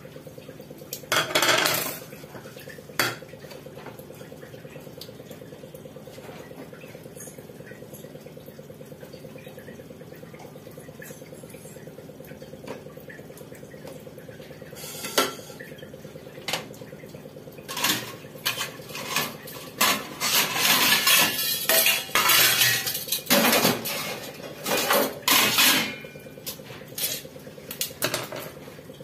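Steel kitchen utensils and cutlery clinking and scraping in scattered short bursts while a cucumber is peeled and prepared, growing busy in the last third, over a steady low hum.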